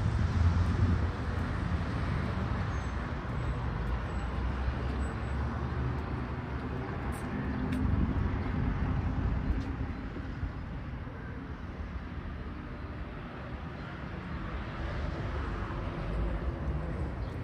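Street traffic: motor vehicles running and passing, a steady rumble that swells and fades a few times.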